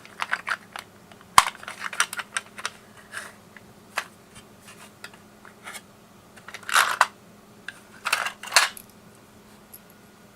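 Small clicks and taps of a small screwdriver and a smartphone's plastic case being handled, with three short, louder scraping snaps between about seven and eight and a half seconds in.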